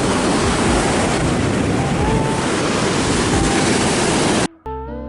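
Ocean surf with wind buffeting the microphone, a loud, steady rush that cuts off abruptly about four and a half seconds in. Music with sustained, plucked notes follows.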